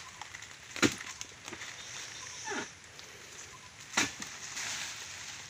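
Two sharp strikes of a dodos, a chisel blade on a long pole, driven into the woody base of oil palm fronds, about three seconds apart.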